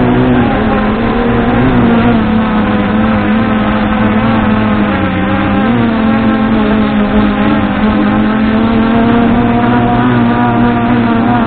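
MJX Bugs 2W quadcopter's brushless motors and propellers whining steadily in flight, heard loud and close from the action camera mounted on it. The pitch wavers slightly as the throttle changes.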